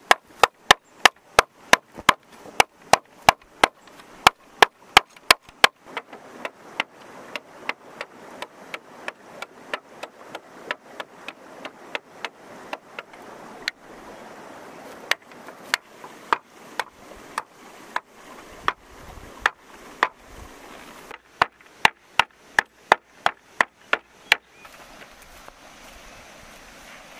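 Machete chopping along the inside of a split bamboo half, knocking out its nodes: sharp strikes about three a second. They grow softer about six seconds in, then come more sparsely and stop a few seconds before the end.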